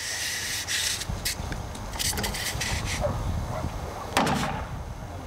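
Hammer blows on a length of 2x4 held against the edge of a steel-skinned structural insulated panel: several knocks, the heaviest about four seconds in. The blows drive home a section of the snap-together seam that has not snapped all the way in.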